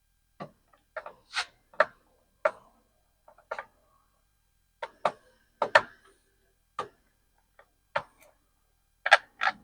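Irregular sharp clicks and taps of a Phillips screwdriver and loose screws against a car door's armrest as its screws are taken out, about fifteen in all, some in quick pairs.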